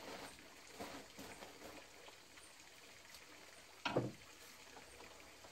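Quiet handling noises of food and dishes on a wooden shelf, with one short sharp knock about four seconds in.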